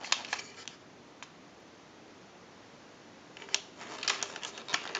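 Light clicks and taps of hands handling a telephone's housing and parts: a cluster at the start, a quiet stretch, then more clicks from about three and a half seconds in.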